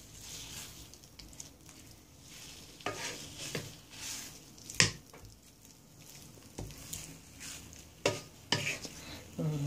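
Chicken thighs sizzling quietly in a non-stick frying pan while a wooden spatula pushes them around, with a few sharp scrapes and knocks of the spatula against the pan.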